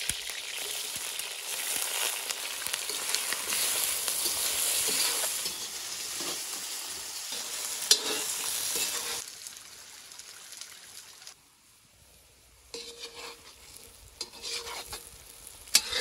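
Cubed potatoes sizzling as they fry in hot oil in a kazan cauldron, stirred with a metal skimmer. The sizzle is loud for the first nine seconds, then drops to a much quieter sizzle, with a sharp clink about eight seconds in and another near the end.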